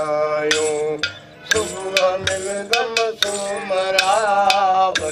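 Male folk singer singing a Sufi song in a long, wavering, ornamented line, with sharp hand-struck percussion strikes under it and a brief pause about a second in.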